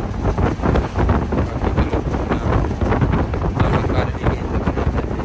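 Inside a moving bus: steady low rumble of engine and road, with wind buffeting the microphone.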